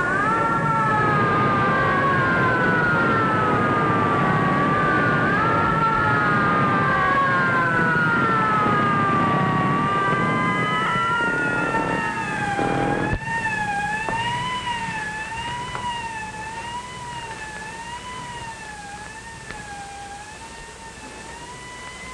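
Several fire engine sirens wailing at once at different pitches, rising and falling over an engine rumble, and fading away as the apparatus pulls out. After about 13 seconds one siren is left, wavering up and down about once a second and growing fainter.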